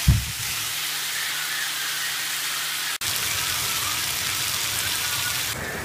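Steak strips and red onion sizzling steadily in a frying pan, with a low thump at the very start and a brief cut-out of the sound about three seconds in.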